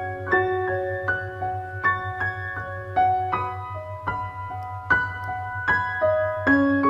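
Background music: a tune of struck notes over a steady low drone.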